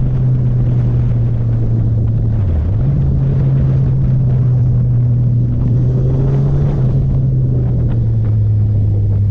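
Sport motorcycle engine running under way, heard from the bike itself, with wind rumble on the microphone. The engine note dips briefly and recovers about two and a half seconds in, and settles a little lower about seven seconds in.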